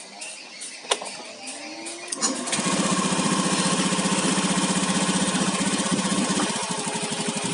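Automatic scooter engine starting about two seconds in, then idling steadily with an even beat. The spark plug cap has been reconnected, and the knocking from the loose cap is gone: the engine sounds safe.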